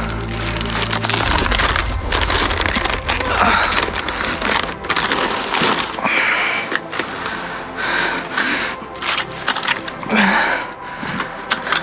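Plastic chip bags and other plastic-wrapped items being handled, crinkling and rustling with many sharp crackles.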